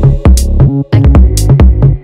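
Electronic background music with a drum-machine beat and heavy bass.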